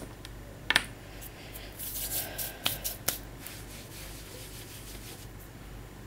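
Handling noise from hands moving small jars of acrylic paint about, with fabric rubbing close to the microphone. It is a scraping rub with a few sharp clicks, the first a little under a second in and two more near the middle.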